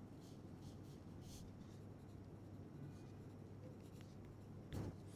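Faint scratching of a pencil writing notes on paper, a few short strokes, over a low steady hum.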